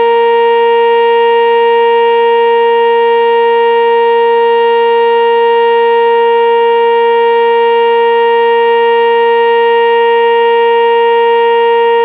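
Sentry 10V2T dual-tone outdoor storm siren sounding its steady Alert signal: one loud, unbroken tone that holds its pitch without rising or falling.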